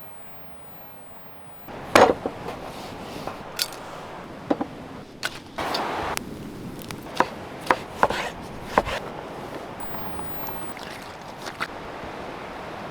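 Chopping: about a dozen irregular, sharp knocks of a blade striking wood, the loudest about two seconds in, over a steady outdoor background.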